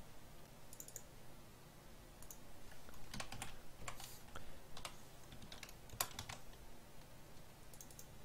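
Keystrokes on a computer keyboard, typed in short irregular bursts of clicks, faint, over a steady low hum.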